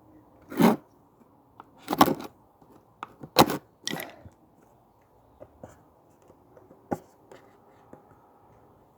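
Hands fumbling with a hard plastic tool case while trying to open it: a few short clicks and scrapes, the loudest about half a second, two and three and a half seconds in.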